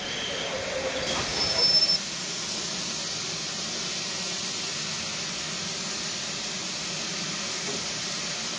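Railway carriages rolling slowly past with a high wheel squeal, cut off abruptly about two seconds in; then a steady hiss of steam from a GWR steam locomotive standing at the platform.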